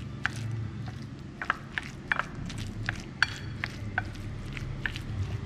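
Wooden chopsticks stirring minced pork and shiitake mushrooms on a ceramic plate: irregular light clicks and taps against the plate, a few with a brief ring, over a low steady hum.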